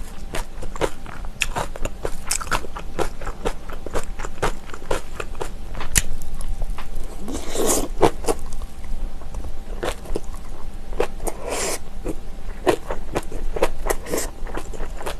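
Close-miked chewing of kimchi: a steady run of crisp, wet crunches and mouth clicks, several a second, with two longer, noisier crunches about seven and about eleven seconds in.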